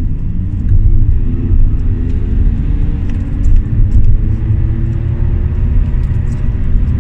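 Cabin sound of a stage 1 remapped Audi A4 2.0 TDI four-cylinder turbo diesel pulling hard under full acceleration in second gear. A deep rumble runs under an engine note that climbs as the car gathers speed.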